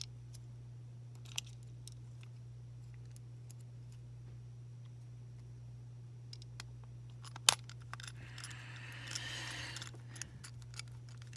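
Small clicks and handling noises from the plastic casing of a Beyblade Burst string launcher being closed up after repair, with one sharp snap about seven and a half seconds in followed by a couple of seconds of rustling and scraping. A steady low hum runs underneath.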